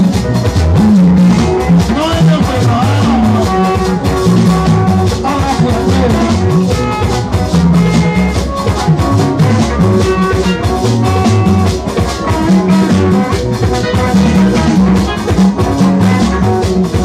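Live dance band playing: electric guitars and bass guitar over a drum kit keeping a steady beat.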